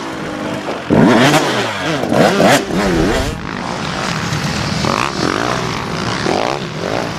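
Dirt bike engine revving, its pitch swinging up and down again and again as the throttle is worked, with the loudest surges about a second in and again around two and a half seconds in.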